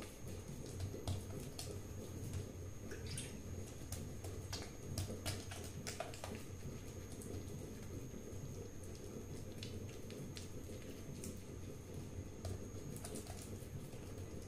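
A wet hand patting and pressing methi dhapate dough flat on a wet cotton cloth: faint, irregular soft wet pats and small smacks.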